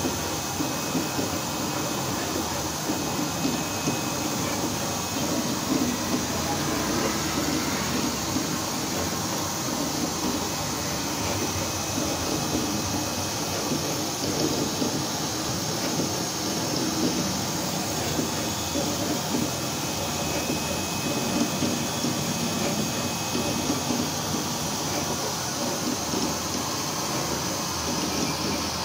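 Vulcan FC-500VC flatbed cutting plotter running as its cutting head works across a sticker sheet: a steady mechanical hum with a constant hiss over it.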